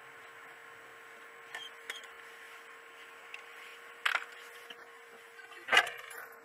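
Faint steady hiss and hum of a dashcam's in-car recording, with a few sharp clicks or knocks; the loudest come about four and about six seconds in.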